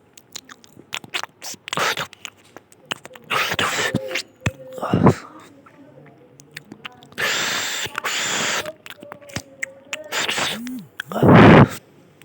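A person chewing food with many wet mouth clicks and smacks. A long breathy rush comes in the middle, and a loud short voiced burst comes near the end.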